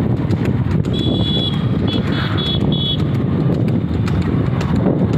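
Steady wind and road rumble from riding behind a buffalo-drawn cart, with faint regular clicks of the buffalo's hooves on the asphalt. About a second in, a high beep sounds, followed by a quick run of short beeps.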